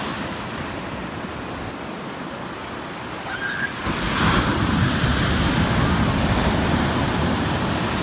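Indian Ocean shore-break surf on a sandy beach: foam hissing as it washes over the sand, then about four seconds in a roller crashes right at the shore and its whitewater rushes in loudly.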